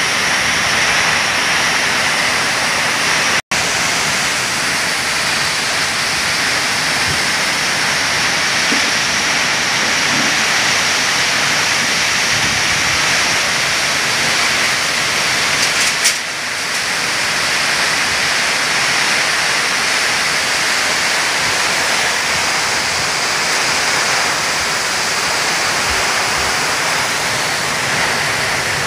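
Torrential rain with strong gusting wind in a thunderstorm: a loud, steady hiss of downpour through palm and other trees. The sound cuts out for an instant about three and a half seconds in.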